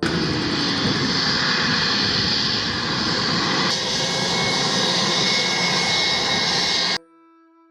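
Airplane sound effect: steady, loud airplane engine noise that starts abruptly and cuts off suddenly after about seven seconds.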